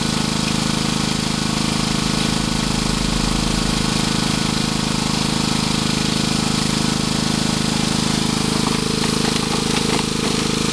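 A highbanker's 1.5-horsepower pump motor running steadily at a constant speed.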